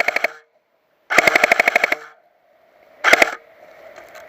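A Dboys S-System airsoft gun firing full-auto in rapid bursts, about twenty shots a second: a burst that stops about half a second in, a second burst of about a second, and a short burst near three seconds in.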